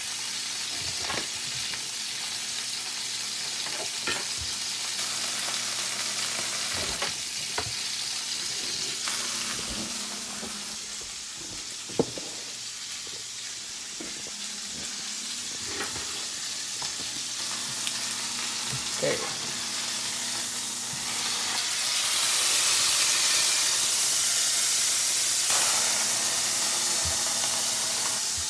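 New York strip steak sizzling in oil in a nonstick frying pan, with scattered clicks and knocks of utensils. The sizzle grows louder and hissier for the last several seconds.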